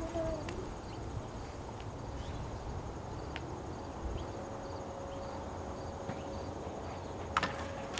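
Crickets chirping over a low, steady rumble of outdoor ambience, with a few sharp clicks near the end.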